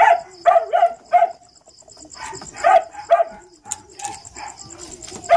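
Dog barking, a string of short, sharp barks, some in quick pairs, with a gap of about a second in the middle. A steady, high pulsing trill runs underneath.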